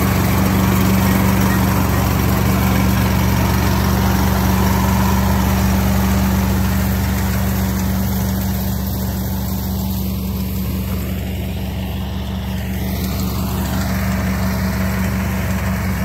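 Small Mitsubishi rice combine harvester running close by as it cuts and threshes rice: a steady engine drone with the machine's mechanical noise over it.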